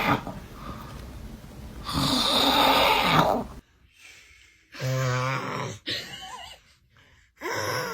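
A man snoring: a long, rasping snore about two seconds in, then, after an abrupt drop, three shorter, deeper snores.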